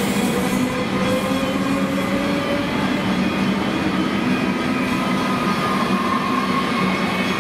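Melbourne Metro suburban electric train running along the platform, with steady rail noise from its wheels and a motor whine that slowly rises in pitch.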